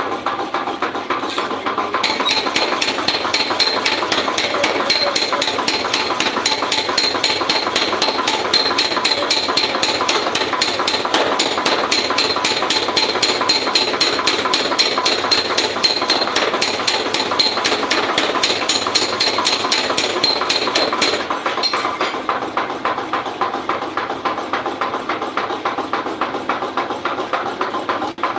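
Fast, evenly spaced hammer blows on metal, several a second, with a steady metallic ring under them. They start about two seconds in and stop about three-quarters of the way through.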